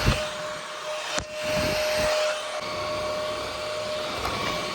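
Cordless stick vacuum cleaner with a high-speed brushless motor, running steadily: a rushing air hiss with a steady motor whine. Two sharp knocks come at the start and about a second in.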